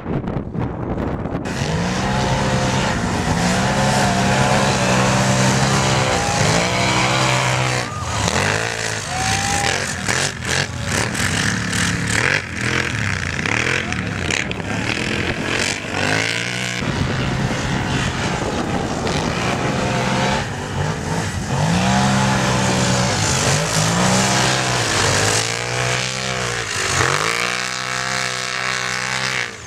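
Racing ATV engines revving hard, the pitch rising and falling over and over as the quads accelerate, back off and pass, with several engines overlapping.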